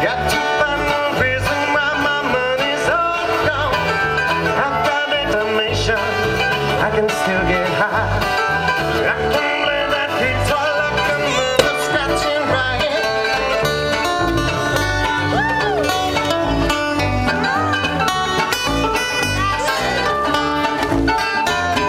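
Live acoustic band playing bluegrass-style music: mandolin, acoustic guitar and bass guitar amplified through PA speakers, with a steady beat.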